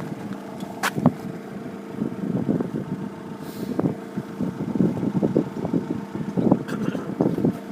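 Level crossing warning alarm sounding as a steady tone, over an uneven rumbling noise that swells and fades.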